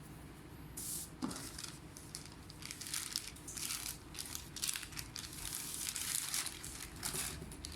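Thin plastic crinkling and rustling as it is handled, in irregular bursts from about a second in.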